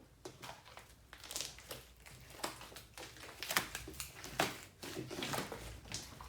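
Soft, irregular squishes and crackles of homemade glue slime being squeezed and stretched by hand.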